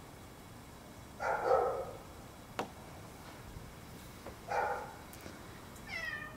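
Animal calls: two short bark-like calls about three seconds apart, a sharp click between them, and a brief pitched call near the end.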